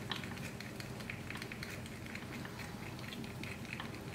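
Faint handling sounds: scattered light ticks and rustles of hands working fly-tying thread at the vise while tying it back onto the hook after it broke, over a low steady hum.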